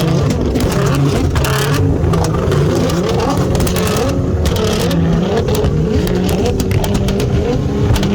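Nissan GT-R R35's twin-turbo V6 engine revving, its pitch climbing and dropping back over and over.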